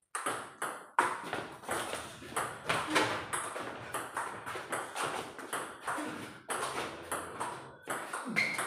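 Table tennis rally: the celluloid ball clicks off the rubber paddles and bounces on the tabletop in a quick, steady back-and-forth, about three hits a second.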